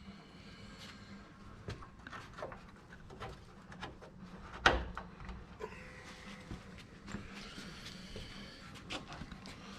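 Scattered light clicks and clinks of tools and metal parts being handled during van repair work, with one sharp knock a little before halfway.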